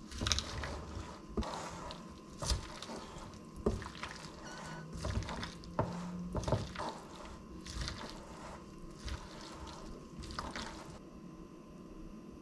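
Salad dressed with tahini sauce being tossed with a utensil in a stainless steel bowl: wet squelching of leaves and chickpeas with irregular clicks and taps of the utensil against the metal. The tossing stops near the end.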